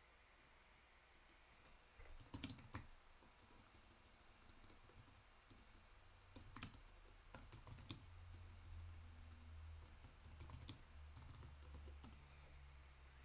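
Faint, irregular computer keyboard typing and clicks, starting about two seconds in, over a low hum.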